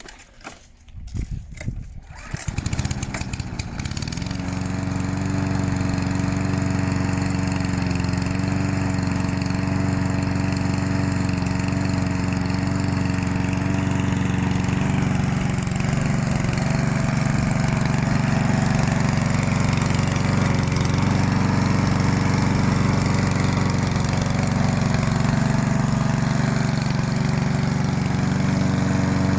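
Yardworks 173cc push lawnmower pull-started warm: clicks of the cord pull, then the engine catches about two seconds in and settles into steady running.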